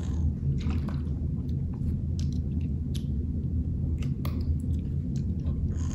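Sips and swallows from a plastic water bottle, followed by small plastic clicks and handling as the Cirkul cap's flavor dial is turned. A steady low hum runs underneath.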